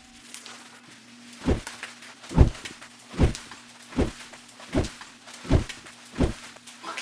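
Seven heavy footsteps thudding on a hard floor at an even walking pace, about one every three quarters of a second, over a faint steady hum.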